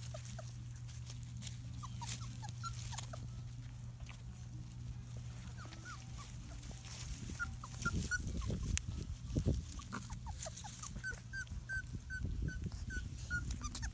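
Three-week-old Labrador puppies whimpering in short high squeaks, scattered at first, then a quick run of about eight near the end, over low rustling and bumping as they jostle at the nursing dam.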